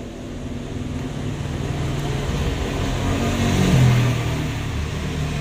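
A motor vehicle's engine running past, its low hum swelling to a peak about four seconds in and then easing off.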